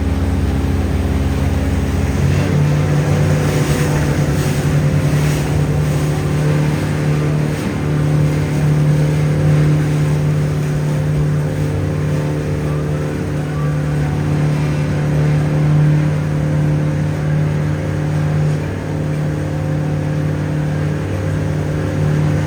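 A river-cruise boat's engine running steadily. Its note steps up in pitch about two seconds in and then holds, over a steady rushing noise.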